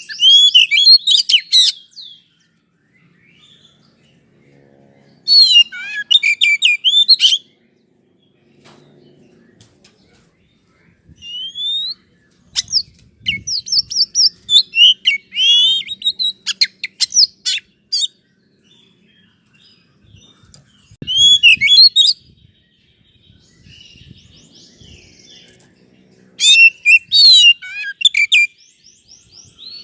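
Oriental magpie-robin song: loud bouts of rapid, varied whistles and chirps, five outbursts of a few seconds each with short pauses between, a lure recording played to get a caged magpie-robin to answer and sing.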